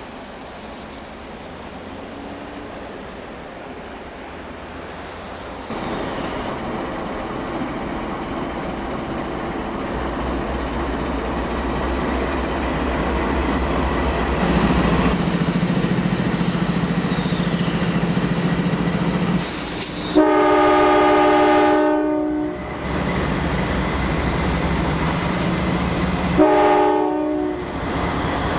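Norfolk Southern GE Dash 9-40CW diesel locomotive leading a coal train, its rumble and engine drone growing louder as it approaches and passes. It sounds its K5LA five-chime air horn twice: a long blast about two-thirds of the way through and a shorter one near the end.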